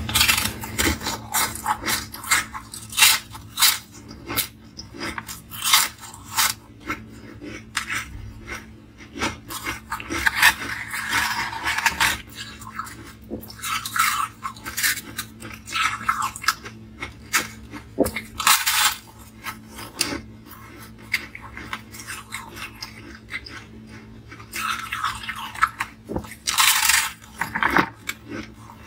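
Close-miked biting and chewing of frozen ice slabs: dense, sharp crunching and crackling, thinning out a little after the middle and picking up again near the end, over a faint steady hum.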